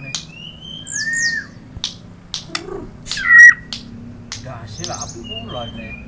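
White-rumped shama singing: a varied string of clear whistles and slurred, gliding notes broken by sharp clicking chips, with its loudest phrase a little over three seconds in.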